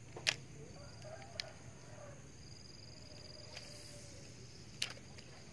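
Quiet outdoor ambience with a thin high tone that comes and goes, broken by three sharp clicks, the loudest just after the start, from the fishing rod and reel being handled during a lure retrieve.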